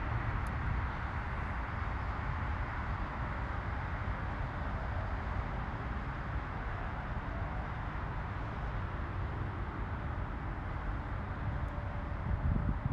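Widebody twin-jet airliner taxiing past with its engines at idle: a steady low rumble with a hiss over it.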